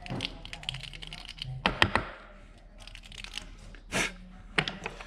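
Small bolts and parts being handled by hand: a run of light clicks and taps, the loudest cluster a couple of seconds in, and a short rustle about four seconds in.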